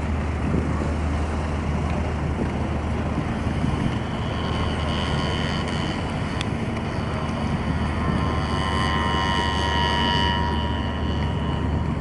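Cargo ship's engine running steadily with a deep hum as it comes alongside the wharf. A high mechanical whine rises in about four seconds in, is strongest a couple of seconds before the end, and then fades.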